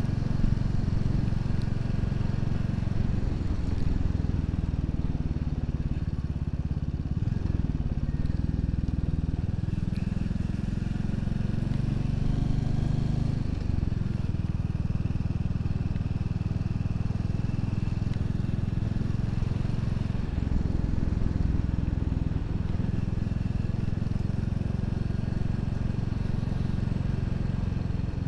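Royal Enfield Classic 350's single-cylinder engine running steadily while the motorcycle is ridden, its note shifting a couple of times.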